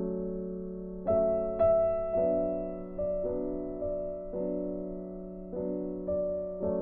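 Background music: a slow piano piece, chords struck about once a second and left to ring.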